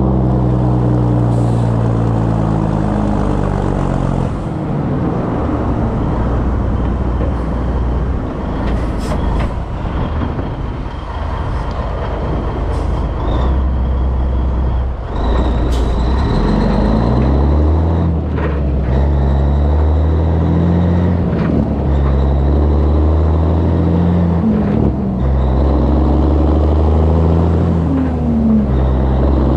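Peterbilt 362 cabover truck's diesel engine pulling a flatbed trailer, with road and wind noise. In the second half the engine's pitch climbs and drops back again and again as it works up through the gears.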